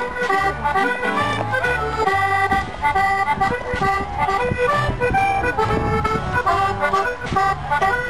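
Scottish country dance music with an accordion lead over a steady bass-and-chord accompaniment.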